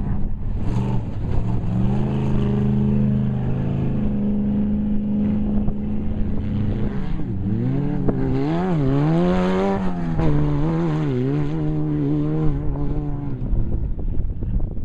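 Off-road race vehicle's engine running hard at a steady pitch, then rising and falling in pitch several times about halfway through before settling again.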